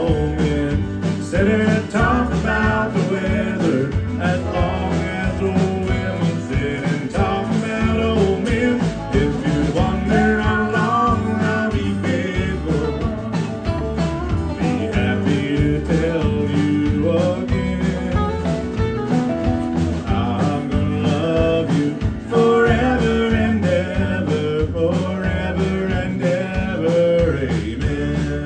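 Live country band playing with a steady beat: fiddle, acoustic and electric guitars, bass and drums.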